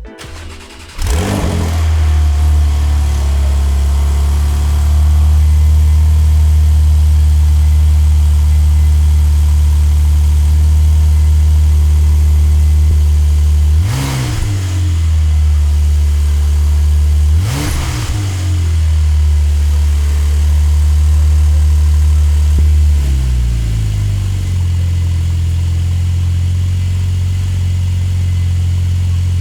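Porsche 992.1 Targa GTS twin-turbo flat-six starting up through a custom titanium valved catback with G-Sport high-flow cats, then idling steadily. It takes two sharp throttle blips, about three and a half seconds apart, midway through. Later the idle drops to a lower speed.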